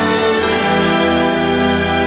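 Instrumental background music with sustained, held chords at a steady level.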